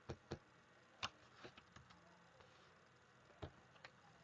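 A few sharp, separate computer mouse clicks over quiet room tone, as items are selected on screen.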